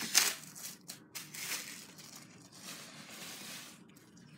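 Wrapper crinkling and tearing as it is pulled off a bundle of bottle rockets, with a sharp rip about a quarter second in and further rustling bursts that fade near the end.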